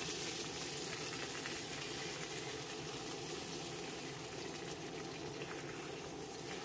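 A pot boiling steadily on the fire, with an even bubbling hiss that does not change.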